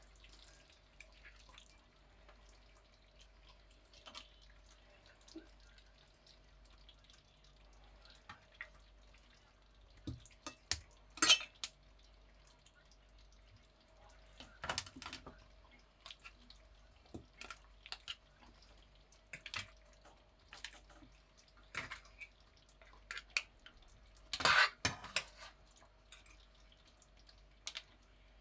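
A metal fork and serving utensils clinking and scraping against a ceramic plate and a pan while pasta, mussels and shrimp are served out: scattered light clicks, with louder clattering knocks about a third of the way in and again near the end, over a faint steady hum.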